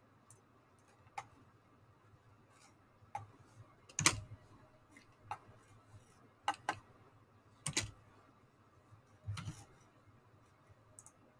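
Scattered soft clicks and light knocks, about ten in all at irregular intervals, the loudest about four seconds in: a computer mouse being moved and clicked on a desk.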